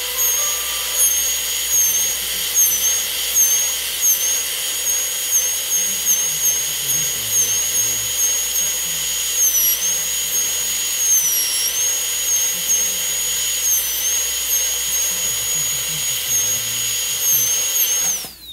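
High-speed dental handpiece running with a steady high-pitched whine while cutting a tooth for a class 4 restoration. Its pitch dips briefly a few times, and it winds down with a falling whine just before the end.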